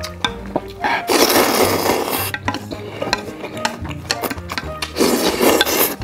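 A man slurping long mouthfuls of jjajangmyeon (noodles in black bean sauce), two long loud slurps: one about a second in and another near the end.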